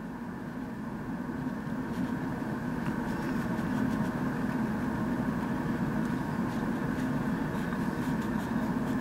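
A steady mechanical drone, like a motor or engine running, slowly getting louder.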